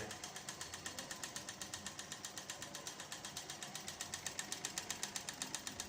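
AMIO Purepro water purifier making a strange, even clicking rattle, several clicks a second. It is running without any water supply, which the owner takes for the cause after first fearing it had broken.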